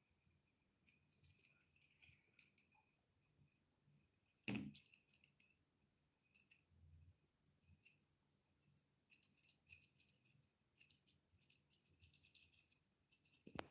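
Faint grooming scissors snipping a toy poodle's face hair, in quick runs of short crisp cuts. A single knock about four and a half seconds in.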